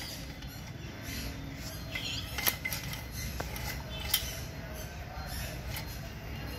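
Two sharp clicks, about two and a half and four seconds in, as the steel sampling tube of a hermetic sampler knocks against a plastic cup of sample water, over a steady low rumble.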